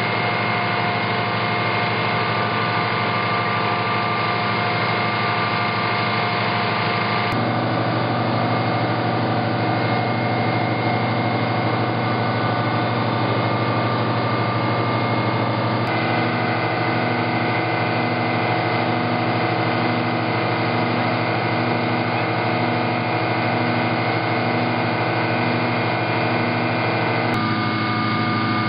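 Engine of a truck-mounted Schramm Rotadrill drilling rig running steadily. Its tone changes abruptly about 7, 16 and 27 seconds in, and from about 16 to 27 seconds a regular pulse comes a little over once a second.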